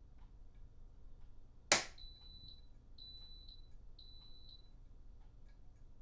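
DeLonghi Clessidra drip coffee maker giving one sharp loud click, then three high beeps a second apart, the signal that the brew cycle has finished.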